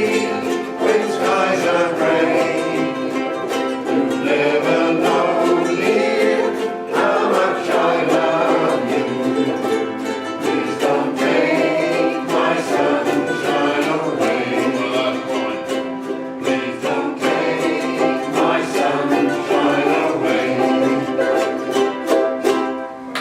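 A small group singing a song together to strummed string accompaniment, the song finishing just before the end.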